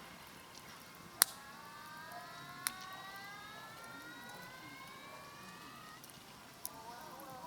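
Campfire crackling, with a sharp pop about a second in and a few softer ticks, while a thin whistle from the burning wood rises slowly in pitch for about five seconds and then stops.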